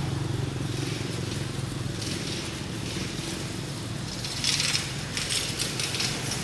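A steady low engine hum runs throughout. Short bursts of hiss come about a second in and again at two seconds, with a louder, longer stretch of hiss from about four and a half to six seconds.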